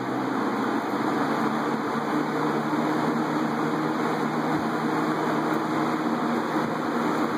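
Vintage Hoover E1501 20-inch single-speed box fan running: a steady rush of air from its five blades over a low motor hum. It gains a little speed in the first second, then runs evenly.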